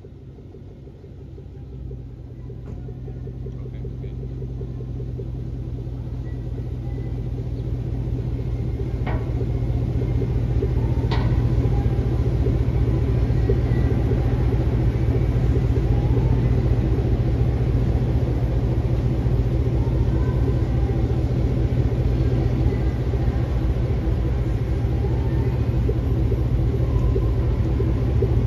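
2005 Chevrolet Tahoe's V8 idling through its new exhaust: a steady, deep drone that grows louder over the first ten seconds or so, then holds. Two light clicks about nine and eleven seconds in.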